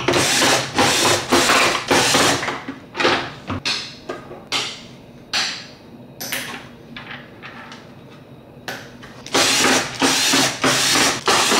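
Power drill run in repeated short bursts, backing screws out of the plastic cover of a gummed tape dispenser. Several bursts in the first few seconds, a few scattered ones and a quieter stretch in the middle, then longer runs near the end.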